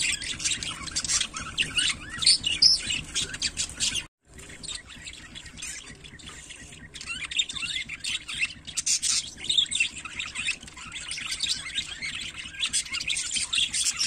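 A flock of budgerigars chattering, many quick high chirps and warbles overlapping. The sound cuts out for a moment about four seconds in. The calling is sparser for a few seconds after that, then grows dense again.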